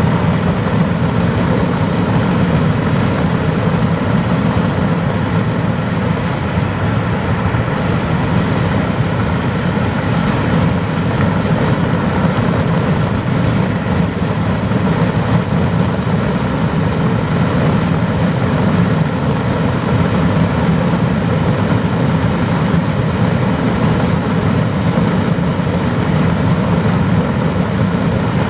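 Steady rumble of a car driving at highway speed, heard from inside the cabin: tyre and wind noise through a part-open side window, unchanging throughout.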